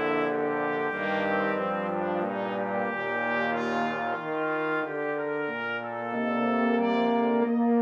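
Brass quintet of trumpet, French horn, trombone and bass trombone, played back from a notation program's sampled instruments, holding slow sustained chords that change about once a second.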